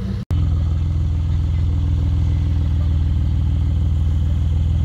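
Porsche 911 Turbo's flat-six engine idling steadily with a deep, even note. A momentary dropout comes a fraction of a second in.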